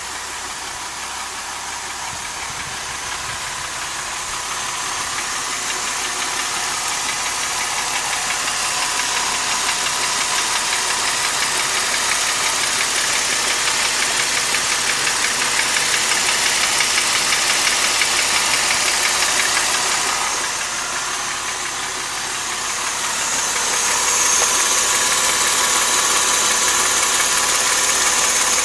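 Mercedes-Benz M272 V6 engine idling at operating temperature with a steady knocking, which the owner hears only once the engine is warm and mostly from the right side. It grows louder over the first half, dips briefly about two-thirds in, then comes back louder.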